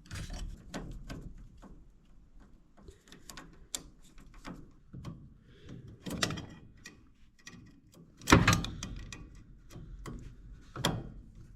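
Handling noise from a zone valve's replacement power head: scattered plastic-and-metal clicks, rattles and knocks, with one loud knock about eight seconds in.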